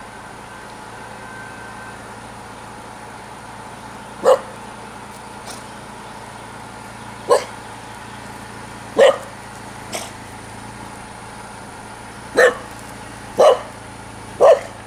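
A small puppy barking: about seven short, sharp single barks, several seconds apart at first and coming about once a second near the end, one of them fainter.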